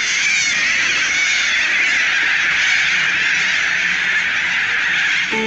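A large flock of cockatoos screeching all at once: a dense, steady chorus of overlapping calls. Guitar music comes in right at the end.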